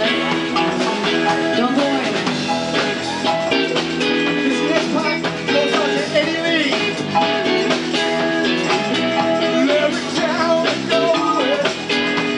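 Live rhythm-and-blues band playing a funky groove: a Fender Stratocaster electric guitar over Fender Jazz Bass, drums and keyboards, with regular drum hits and some bent notes about six seconds in.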